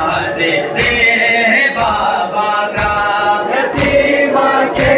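A crowd of men chanting a noha, a Muharram lament, in unison, with a sharp beat about once a second from the mourners' rhythmic chest-beating (matam).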